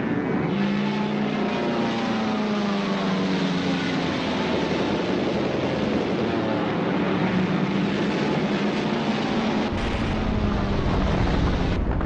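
Propeller aircraft engines drone steadily, a bomber-engine sound effect laid under wartime bombing footage. A deep rumble comes in near the end.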